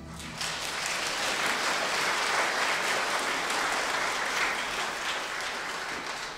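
Audience applauding at the end of a song, starting just after the last chord and tapering off near the end.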